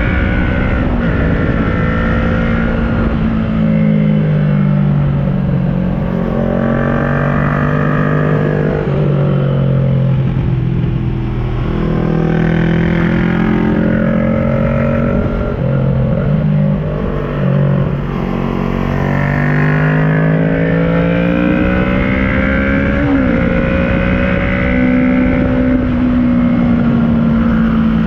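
Kawasaki ER-6n's 649 cc parallel-twin engine through an aftermarket SC Project carbon exhaust, ridden hard uphill. Its note rises and falls over and over as the rider accelerates, shifts and eases off, with a steady rumble of wind and road underneath.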